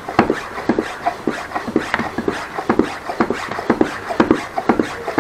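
Bicycle pump being worked quickly to inflate a bicycle tyre, with a short puff of air on each stroke, about three strokes a second.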